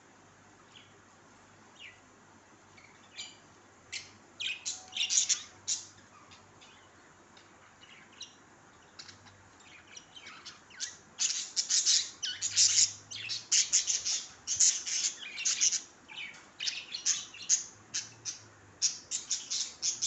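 Caged small parrots, Fischer's lovebirds and budgerigars, chirping in short high-pitched calls. The calls are scattered at first, come in a loud cluster a few seconds in, then chatter densely and continuously from about halfway on.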